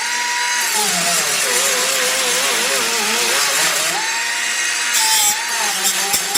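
3-inch pneumatic cut-off tool cutting, its high air-motor whine sagging in pitch as the wheel bites and bogs under load, then climbing back to full free speed about four seconds in.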